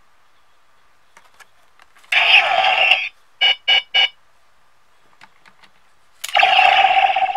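Electronic sound effects from a DX Decadriver toy transformation belt's speaker as it reads a Kamen Rider Diend card: a loud burst of sound about two seconds in, three quick beeps, then another loud sound effect near the end.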